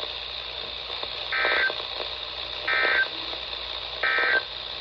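Emergency Alert System end-of-message code: three short bursts of warbling data tones about 1.4 seconds apart, over steady radio hiss, marking the end of the alert broadcast.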